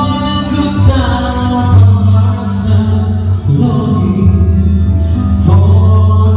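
Live band playing a song with a singer, loud, over a strong bass line.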